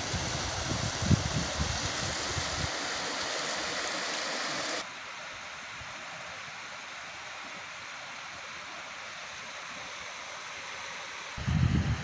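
Steady rushing of a stream of running water, with wind buffeting the microphone in the first couple of seconds and again near the end. About five seconds in, the rush drops suddenly to a quieter, steadier level.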